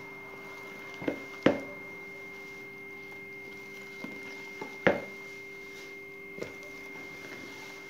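Silicone spatula stirring and folding a stiff dough with dried fruit and nuts in a plastic mixing bowl, with a few short knocks of spatula and bowl, two of them louder, about a second and a half in and about five seconds in. A steady high-pitched tone and a lower hum sound underneath.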